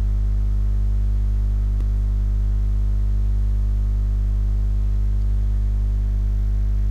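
Steady electrical mains hum in the recording, a low buzz made of a stack of even tones that does not change, with one faint click about two seconds in.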